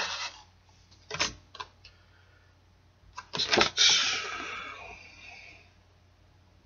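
Handling noise from unpacking a box: a few light clicks and taps, then, about three seconds in, paper rustling as a printed card is pulled out and lifted, fading away over the next two seconds.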